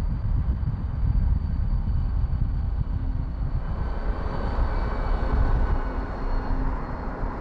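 A car driving at speed: steady, loud road and wind rumble.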